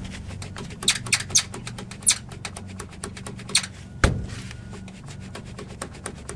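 Peak Suspension aftermarket upper control arm clicking and knocking several times as the suspension moves, the loudest knock about four seconds in. The knocks come from play in the arm and its bushings, which the owner takes for the source of the truck's clunking noise.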